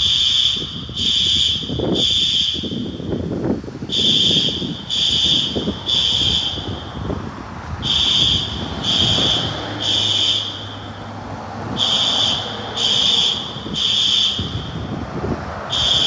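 System Sensor SpectrAlert Advance fire alarm horns sounding the temporal-three evacuation pattern: three high-pitched blasts about a second apart, then a pause, with the group repeating every four seconds.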